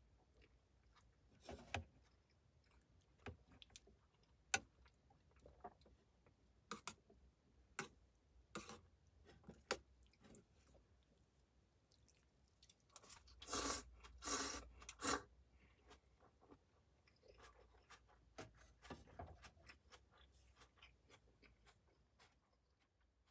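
Faint, scattered clicks and light scrapes, with a louder rustling stretch about 13 to 15 seconds in.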